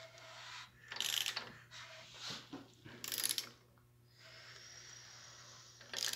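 Socket ratchet wrench clicking in three short bursts as its handle is swung back and forth, turning the tool bolt on the crankshaft nose.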